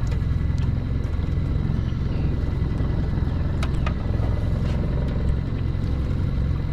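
A small boat's motor running steadily at low speed, a constant low hum, with a few faint clicks over it.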